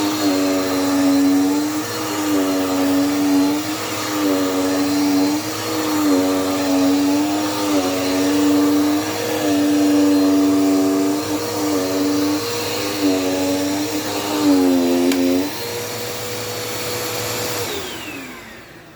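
Dirt Devil Power Max vacuum cleaner running, its motor whine dipping and recovering in pitch every second or two. Near the end it is switched off and the motor winds down with a falling whine.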